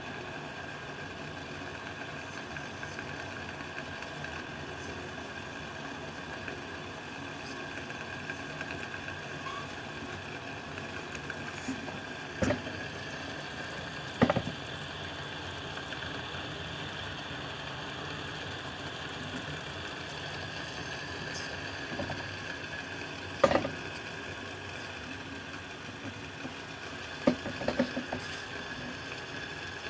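Vargo Triad titanium alcohol stove burning steadily under a pot of water heating toward the boil, a constant hiss of flame and heating water. A few sharp knocks and clicks stand out, about twelve and fourteen seconds in, again near twenty-three seconds and in a short cluster near the end.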